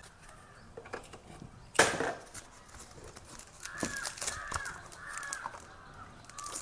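Packaging around a makeup brush being handled and opened: scattered crinkles and clicks, with a sharp crackle about two seconds in. From a little past midway, several short harsh calls sound in the background.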